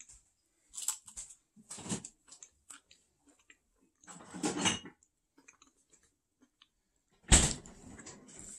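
Crispbread being bitten and chewed, crunching in a few short bursts, the loudest near the end.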